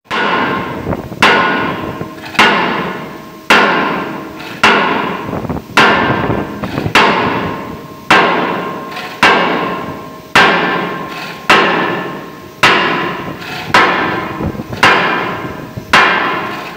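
A hand hammer strikes the steel of a corroded winch brake joint to knock it apart, in steady blows about one a second. Each blow rings on metallically and fades before the next.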